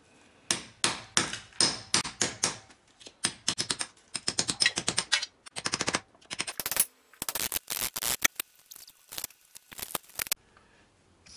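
Claw hammer striking a chisel, chipping out masonry in a brick wall to enlarge the recess for a switch box. Quick runs of sharp blows with short pauses, stopping about ten seconds in.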